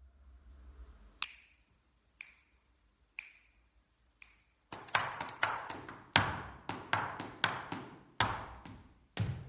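Four sharp clicks about a second apart, then a sean-nós dancer's hard-soled shoes striking the floor in a quick reel-time step: a fast, rhythmic run of loud taps and stamps with a short echo after each.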